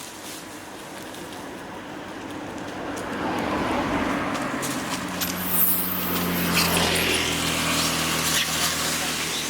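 A motor vehicle running close by: engine noise swells over the first few seconds, then holds as a steady low engine hum.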